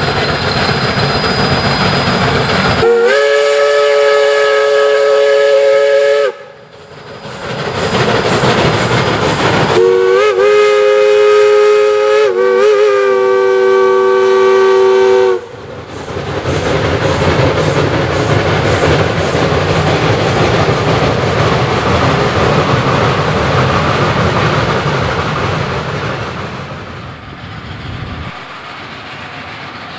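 Shay No. 11, a geared steam locomotive, sounds its steam whistle in two long blasts a few seconds apart: the first about three seconds long, the second about five. Steady rumble and clatter of the passing freight train runs underneath.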